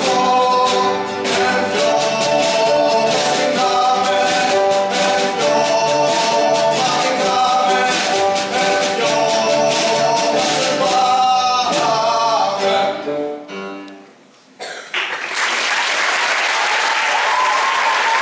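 A school orchestra with a male singer playing the closing bars of a Greek song; the music dies away about fourteen seconds in, and audience applause breaks out and continues.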